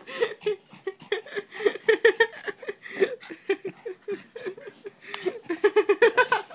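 A person laughing in short, repeated giggles, breaking into a quicker run of laughs near the end.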